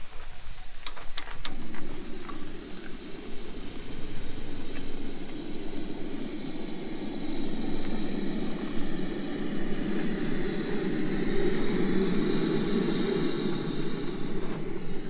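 Several sharp clicks, then a portable gas burner catches about a second and a half in and keeps burning with a steady hiss, growing somewhat louder near the end.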